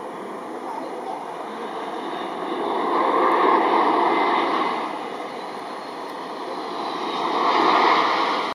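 The CFM LEAP-1B turbofan engines of a Boeing 737 MAX 8 airliner on final approach to land make a steady rushing noise. It swells about three seconds in and again near the end, then cuts off suddenly.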